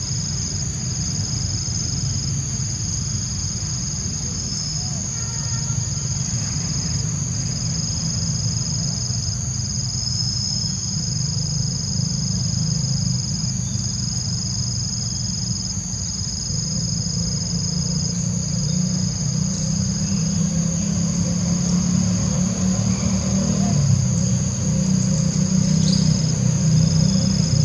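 Steady high-pitched insect chorus droning without a break, over a low rumble that grows louder toward the end.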